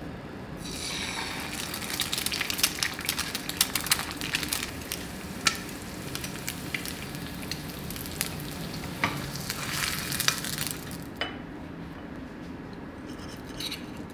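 A raw egg frying in hot olive oil in a nonstick pan: sizzling with many crackling pops that start about a second in as the egg goes into the oil, then stop suddenly near 11 seconds. A few light clicks of a fork on a plate follow near the end.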